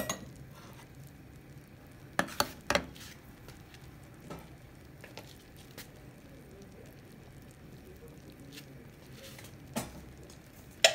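White sauce of milk and flour simmering in a steel pan with a faint, steady bubbling and sizzle. A metal utensil clinks against the pan now and then: three quick knocks about two seconds in, and another near the end.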